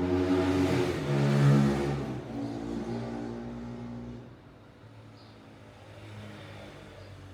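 Samsung GT-E1280 ringtone: held tones that step between pitches, loudest in the first two seconds, then dropping away about four seconds in over a steady low hum.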